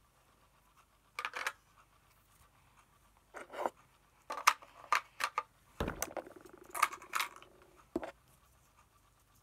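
Toy house pieces being handled and packed back in: several short rattles and clicks, a thump about six seconds in followed by a buzzing scrape lasting nearly two seconds, and a last click.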